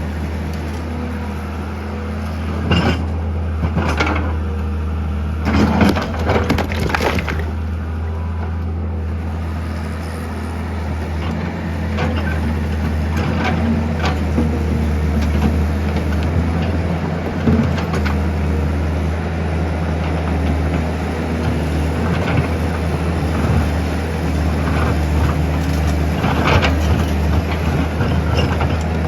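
Steady low motor drone with intermittent sharp clatters and knocks, a few in the first several seconds and again near the end.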